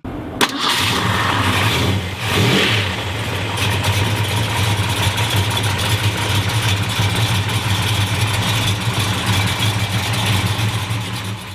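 Car engine running hard at a steady pitch over a rushing hiss, with a brief rise in revs about two seconds in.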